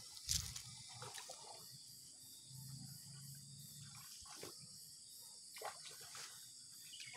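Faint splashing of a person wading through shallow, muddy swamp water, a few soft sloshes spread through the stretch, with a short louder knock about a third of a second in.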